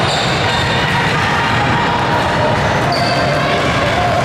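Basketball game court noise in a gym: a ball bouncing on the hardwood over a steady background of voices from players and spectators.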